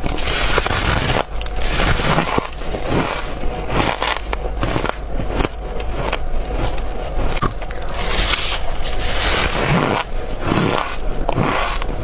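Close-up crunching of freezer frost being bitten and chewed. The dense, crispy, squeaky crackle never stops and swells in fuller bursts every second or so.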